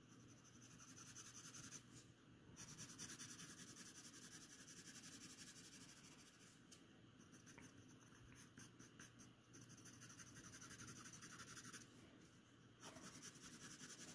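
Graphite pencil scratching on paper in quick, repeated cross-hatching strokes, faint, stopping briefly twice.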